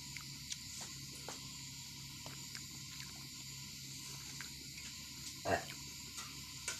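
Close-up eating sounds: scattered soft clicks of fingers tearing roti on a steel plate and chewing, with one louder click about five and a half seconds in, over a steady high chirring of crickets.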